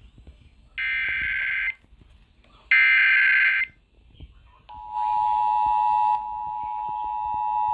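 Two screeching one-second bursts of the EAS SAME header's digital data tones, the last of its three repetitions. About five seconds in, the long, steady alert tone of the tornado warning begins.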